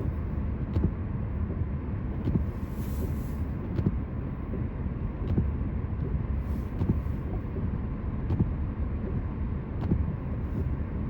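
Steady road and engine noise inside a moving car's cabin, with a light knock repeating about every second and a half.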